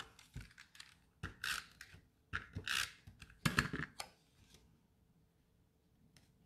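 Paper and cardstock handled at a craft table: a few short rustling, rubbing strokes as a small punched paper piece is glued and pressed down.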